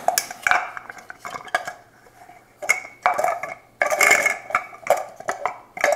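Plastic parts of a KitchenAid food chopper being handled and fitted together: irregular clicks and knocks, with two short scraping rattles about two and a half and four seconds in.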